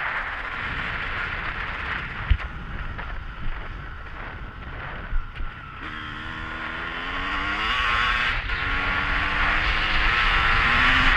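Car engine accelerating: its note climbs, drops for a moment about eight seconds in as the gear changes, then climbs again, growing louder. Before that there is a steady rush of road and wind noise with a few sharp knocks.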